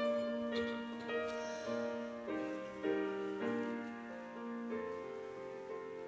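Piano playing the slow introduction to a communion hymn, held chords changing every half second or so, before the singing comes in.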